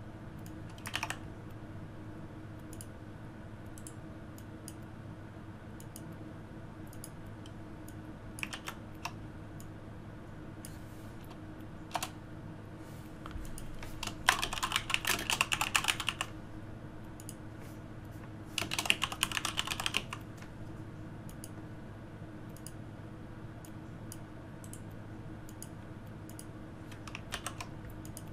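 Typing on a computer keyboard: two quick runs of keystrokes about 14 and 19 seconds in, with a few single clicks scattered between, over a faint steady hum.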